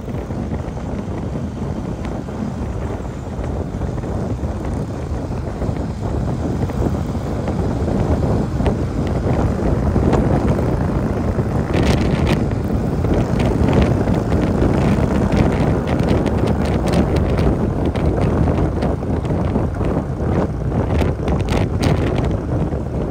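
Harley-Davidson Road King's V-twin engine running as the motorcycle rides along, mixed with wind rushing over the microphone. From about halfway through, short sharp crackles come in again and again.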